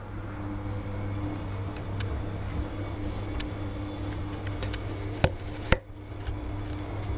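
Bosch front-loading washing machine washing at 90 °C: the drum turns the soapy laundry over a steady motor hum, with light clinks and two sharp clicks about five seconds in.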